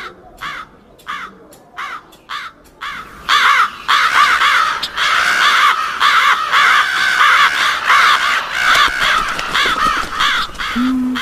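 Crows cawing. Single caws come about every half second at first, then from about three seconds in many crows caw at once, overlapping densely.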